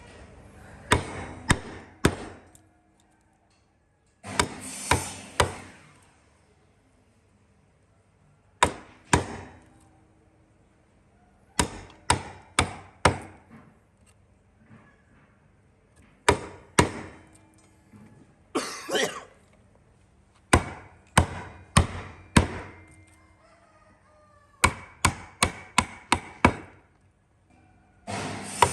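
A hand tool striking wood again and again, in short runs of two to six sharp blows with pauses of a second or more between runs, like chopping or hammering on a log.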